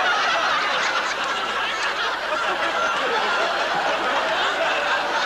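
Studio audience laughing, a steady crowd laugh.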